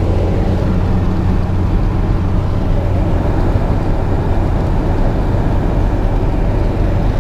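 Steady drone of a small truck driving at road speed, heard from inside the cab: a low engine hum under road and wind noise.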